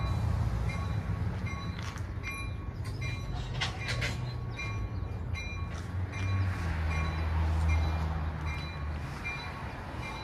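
Train running past: a steady low rumble, a short high ringing tone repeating about twice a second, and a few sharp metallic clanks about two to four seconds in. The rumble eases off near the end.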